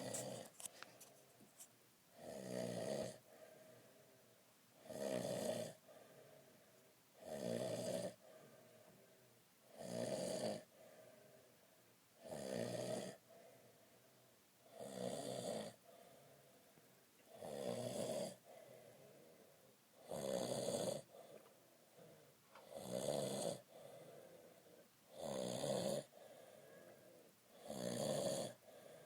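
An old man snoring in his sleep: a snore on each breath, about every two and a half seconds, each lasting about a second, with quieter breathing in between.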